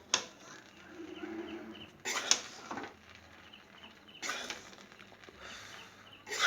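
A utensil stirring grated coconut frying in ghee in a pan, scraping against the pan in short bursts about every two seconds.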